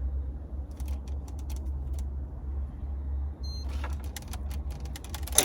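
A steady low hum under light clicks and knocks of a 12-volt portable fridge being handled, with a short electronic beep about three and a half seconds in and a sharper click at the end.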